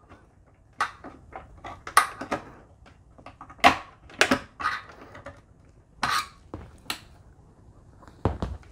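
Irregular clicks, taps and scrapes of a screwdriver and fingers against the steel case and plastic parts inside a desktop PC tower while a DDR4 RAM module is being pushed into its slot, with a duller knock near the end.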